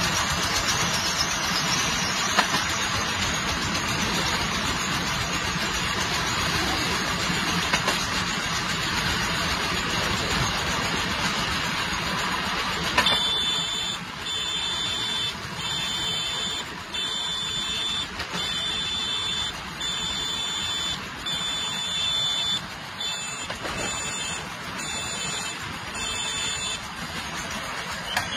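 A train running steadily along the track with a constant rushing noise. About halfway through, a high beep starts repeating, roughly once every second and a half.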